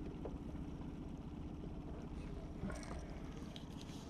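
Steady low rumble aboard a small fishing boat, with a faint knock just after the start and a sharper knock a little before three seconds in.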